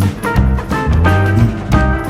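Background music with a steady beat, a prominent bass line and plucked guitar, in a swing or jazz style.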